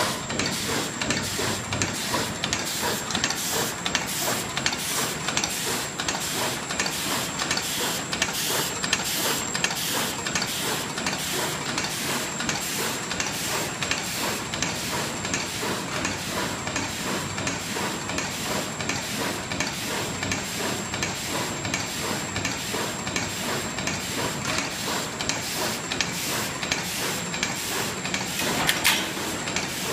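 Plastic bag blocking machine running, its mechanism cycling in a fast, even rhythm of clattering strokes, with a steady high whine under it. One louder knock comes near the end.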